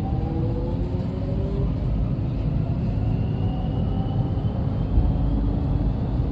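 Electric suburban train accelerating, heard from inside the carriage: a steady low rumble of wheels on rails with a faint motor whine rising slowly in pitch.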